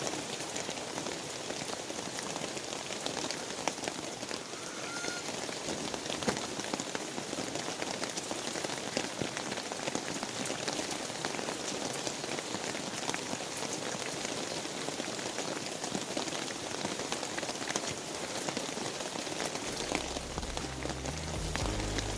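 Steady rain falling and pattering, many small drops ticking at an even level. Low background music comes in near the end.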